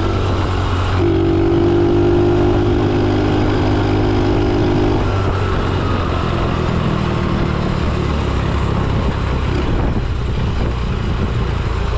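An engine running steadily, its pitch shifting up about a second in and changing again around five seconds in.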